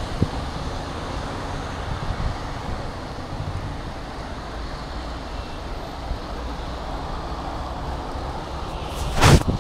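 Steady rushing noise of traffic on a wet road mixed with wind on the microphone while cycling. A single brief, loud burst of noise comes near the end and is the loudest sound.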